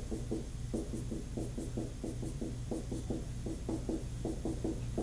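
Dry-erase marker writing on a whiteboard: quick short strokes, several a second, as letters and bond lines are drawn, over a steady low hum.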